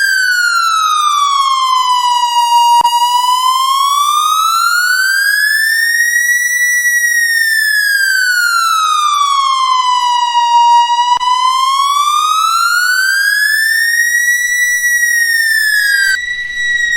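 Police siren sounding a slow wail: one loud tone that glides smoothly up and down, about one full rise and fall every eight seconds. A faint click comes twice, each time at the bottom of the sweep.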